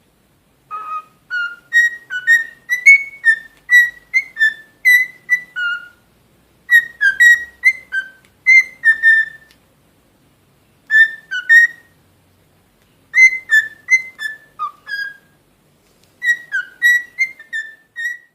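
Cockatiel whistling a tune: short, clear whistled notes stepping up and down in pitch, sung in five quick phrases with brief pauses between them.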